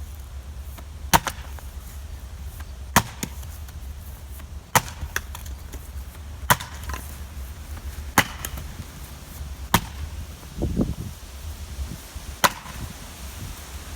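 Fiskars 36-inch splitting axe chopping into a sugar maple log: seven sharp strikes, one every second and a half to two and a half seconds, with a duller thud between the sixth and seventh.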